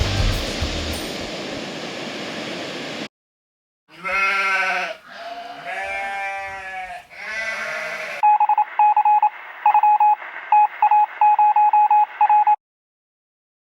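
Music ending about three seconds in, then three drawn-out bleating calls, each bending in pitch, followed by a run of short electronic beeps at one pitch in quick, irregular groups.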